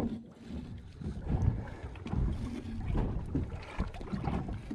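Wind buffeting the microphone in an uneven low rumble, with a few faint knocks.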